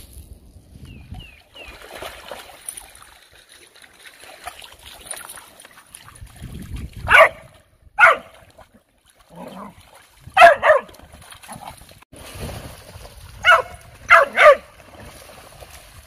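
Dogs barking and yipping in short sharp bursts, about seven barks in clusters starting about seven seconds in, with some splashing in shallow water.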